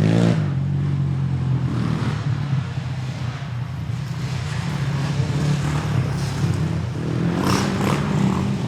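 Motorcycle engine running with a steady low rumble, with short blips of higher sound about the start and again near the end.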